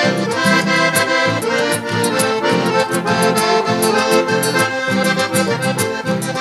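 Gaúcho dance music instrumental break: a piano accordion carries the melody over a bass line and a steady, quick percussion beat.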